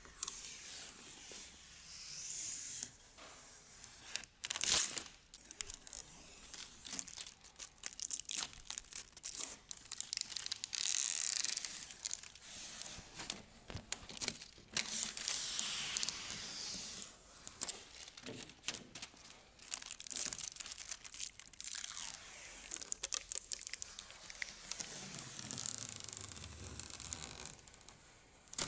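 Protective plastic film being peeled off a 55-inch flat-screen TV's screen: crackling, hissing tearing in several long pulls, with sharp crinkles between them.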